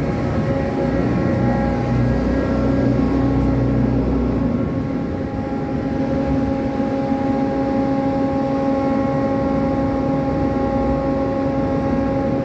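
Steady drone of a ship's deck crane machinery working a grab bucket: a hum with several steady tones over a low rumble. The low rumble drops away about four and a half seconds in.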